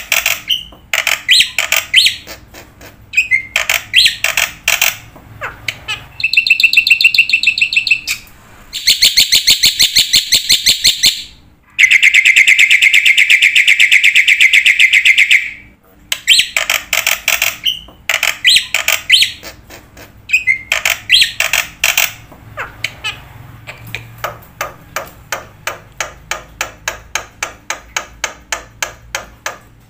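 Bird calls: fast trills and runs of sharp repeated notes, with a long, even trill near the middle and a run of notes that grows fainter toward the end.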